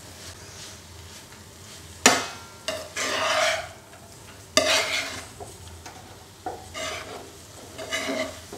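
A spatula stirring and tossing basmati rice with mint leaves in oil in a non-stick frying pan, with a faint sizzle underneath. There are two sharp scrapes against the pan, about two seconds in and halfway through, and lighter scrapes near the end.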